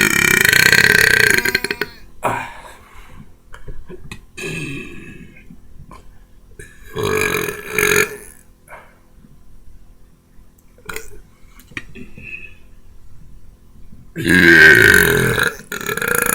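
A man belching loudly: a long burp over the first two seconds, another about seven seconds in, and the loudest, about two seconds long, near the end, with smaller gulps of air between.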